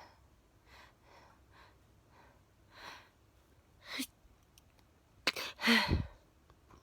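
A woman's sneezing fit: a run of short, soft breaths, a sharper gasping in-breath about four seconds in, then a loud sneeze with a voiced cry a little past five seconds.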